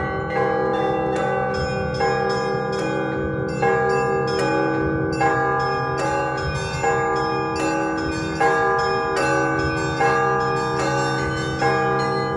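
Orthodox church bells in festive ringing (prazdnichny zvon), several bells struck in a set pattern with their tones overlapping and ringing on. A small bell keeps up a quick, even beat of about four strokes a second over repeated strokes of the larger bells.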